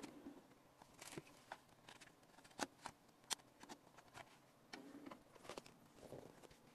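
Faint, scattered clicks and light plastic knocks from a compact disc and its case being handled by hand, over near silence.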